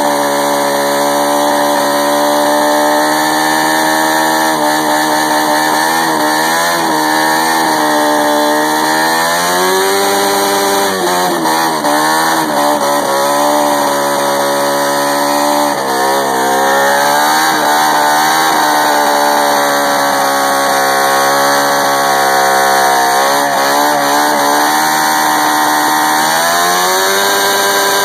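Motorcycle engine held at high revs during a burnout on the back tyre, the revs swelling and dropping again and again.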